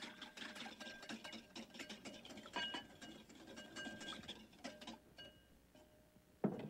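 Whisk beating olive oil into a mustard and orange-juice vinaigrette in a bowl: rapid clicking and scraping of the wires against the bowl, thinning out about five seconds in, then a single knock near the end.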